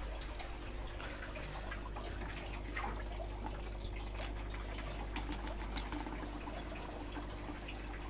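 Air bubbling steadily through water in homemade artemia hatching bottles, a continuous trickling and gurgling over a low steady hum.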